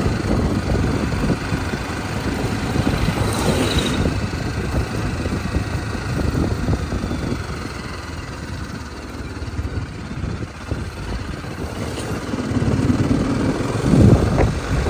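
Vehicle engine running on the move, with a rough low rumble throughout, growing louder near the end.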